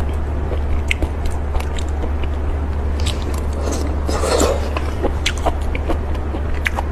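A person biting and chewing seafood close to the microphone, with scattered sharp clicks and a denser stretch of noisy crunching about four seconds in. A steady low hum runs underneath.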